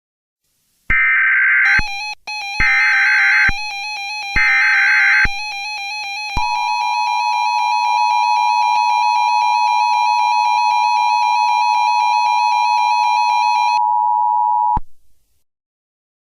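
Emergency Alert System header: three short bursts of screeching data tones, then the steady two-tone attention signal from about six seconds in, held for about eight seconds before it cuts off abruptly. A warbling synthesized tone with overtones plays beneath.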